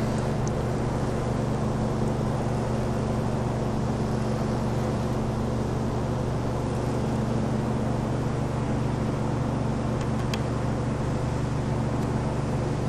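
MakerGear M2 3D printer's cooling fans running with a steady, even hum. A couple of faint clicks come about ten seconds in.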